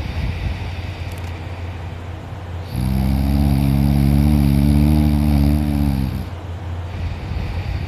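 Adult man snoring loudly in deep sleep: quieter rough breathing, then one long, pitched snore starting about three seconds in and lasting about three and a half seconds before it falls back to quieter breathing.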